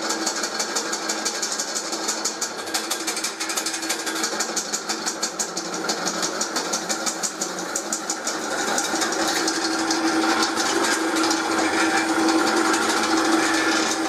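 Drilling machine running with a twist drill boring through a steel box section under hand feed. A fast, even chattering rattle gives way about two-thirds of the way through to a steadier, louder hum.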